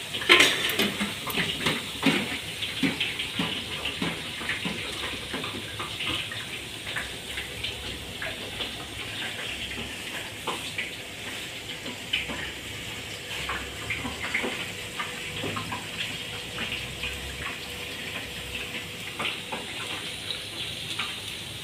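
Hot oil in a deep fryer sizzling steadily around a basket of French fries, a constant hiss full of small crackles. A single sharp knock sounds right at the start.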